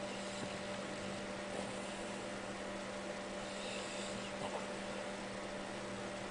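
Steady low electrical hum with a faint even hiss: room tone, with no snore standing out.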